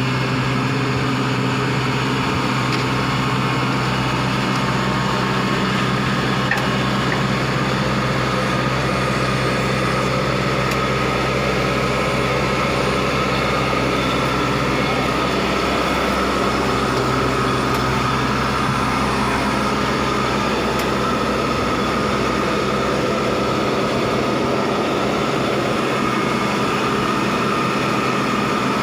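An engine running steadily: a constant low hum with a faint higher whine over it, which dips briefly about halfway through.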